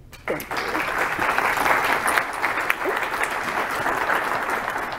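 Audience applauding, the clapping starting abruptly a moment in.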